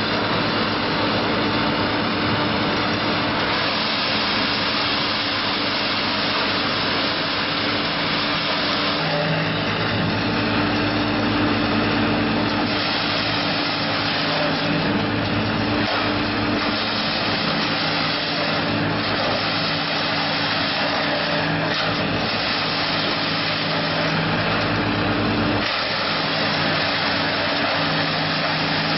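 Diesel-engined mobile wood chipper running steadily and loudly, its engine note shifting several times.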